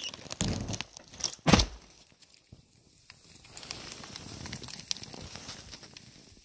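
Dead tree breaking at its part-cut base and falling into snow: a run of sharp cracks of splitting wood, the loudest and deepest about a second and a half in, then a soft steady rushing as snow pours down from the branches.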